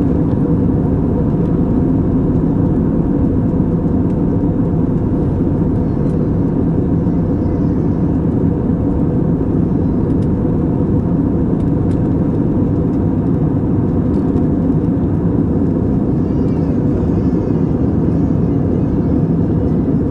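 Steady cabin noise of an Airbus A320 in flight: the even, deep rush of engines and airflow heard inside the passenger cabin.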